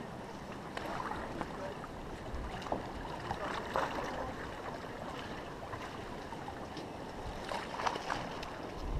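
Water sloshing and splashing, with clusters of small crackling splashes about three seconds in and again near the end.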